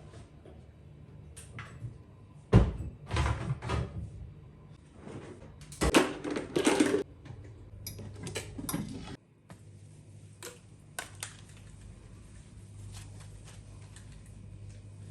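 Household handling noises: a few sharp knocks and bursts of clatter in the first half, then scattered small clicks over a low steady hum.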